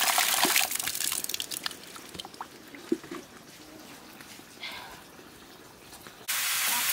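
Water splashing from an outdoor standpipe tap onto concrete, which cuts off about half a second in, leaving dripping and trickling with a few small clicks. Near the end there is a sudden switch to greens sizzling in a hot pan.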